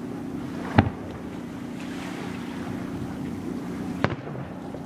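Aerial fireworks going off: two sharp booms, the louder about a second in and another near the end, over a steady low hum.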